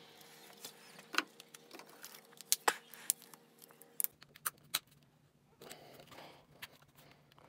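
Handling noise from a cone air filter and a rubber intake adapter with a metal hose clip being fitted together: scattered sharp clicks and light taps over the first few seconds, then a softer rustle near the end.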